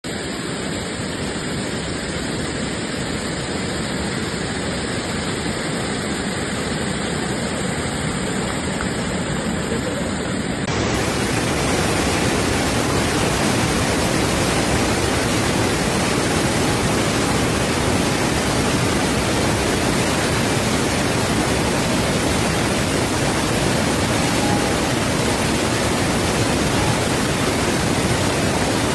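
Heavy waterfall: a steady rush of falling water. About a third of the way in it becomes louder and fuller.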